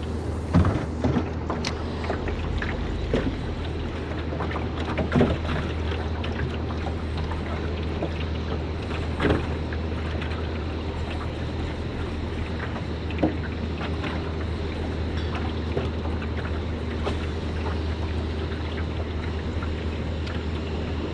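Steady low hum with wind and water rush around a small boat, broken by scattered light knocks and clicks, a few louder ones in the first several seconds and a sharp one about nine seconds in.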